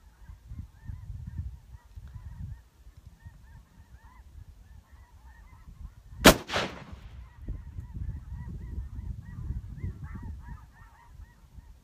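A single shot from a Thompson/Center Compass bolt-action rifle in .22-250, a sharp crack about six seconds in, followed by a brief ringing echo.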